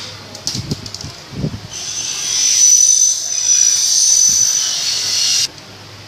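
A few light handling knocks, then a steady high hiss of air or spray lasting about four seconds that cuts off suddenly.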